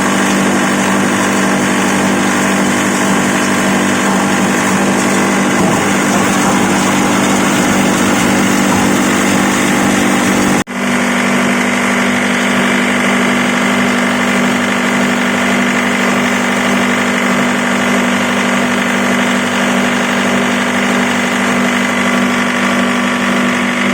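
Electric corn-cob grinding machine running steadily with a strong hum. The sound drops out for a split second about eleven seconds in, then carries on unchanged.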